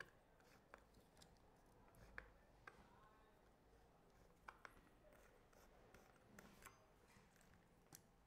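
Near silence with faint, scattered small clicks and rubs: the chainsaw's chain and a hand tool being worked onto the guide bar.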